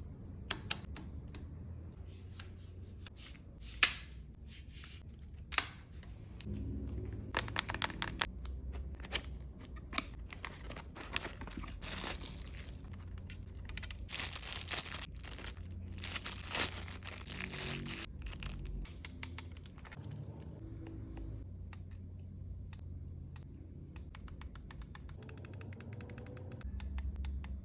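Packaging being handled and opened by hand: scattered clicks and taps, with stretches of crinkling and rustling in the middle, over a steady low hum.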